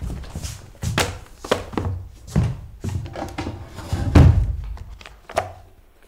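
A run of knocks and handling noise as books are carried and set down on a wooden school desk, the loudest thunk about four seconds in as they land, followed by paper rustling.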